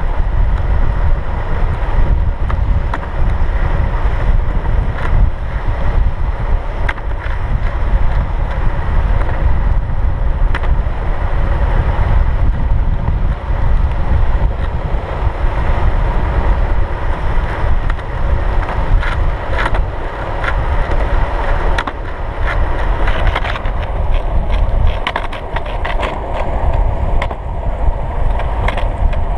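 Skateboard wheels rolling fast on asphalt, a steady rumble with wind buffeting the microphone and occasional sharp clicks.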